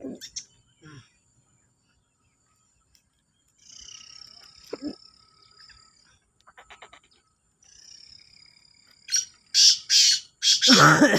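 Caged black francolin calling: a run of four or five loud, harsh, grating notes near the end, after softer descending bird calls in the middle.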